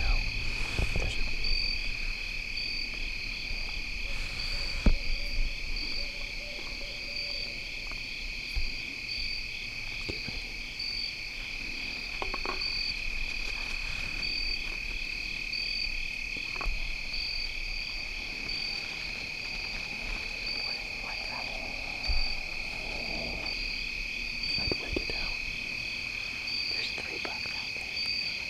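Evening insect chorus of crickets: a steady high trill with a second, higher chirping pulsed at an even beat. Occasional small knocks and rustles sound close by.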